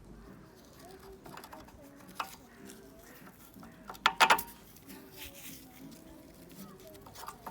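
Scattered clicks and knocks of hand tools being handled on metal, with a cluster of sharp, briefly ringing metallic clinks about four seconds in.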